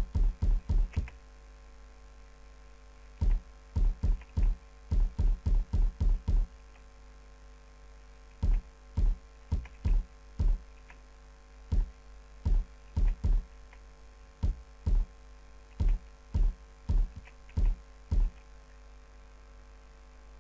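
Snare drum sample triggered by a software drum machine, played back as a looping pattern of short, sharp hits with a low thump. The hits come in quick clusters of several a second with gaps between them, and the pattern shifts as notes are moved in the loop.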